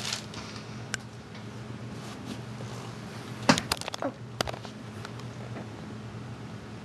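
Steady low hum in a small room, with a sharp click about a second in and a cluster of clicks and knocks between three and a half and four and a half seconds in: handling noise from a handheld camera being swung around.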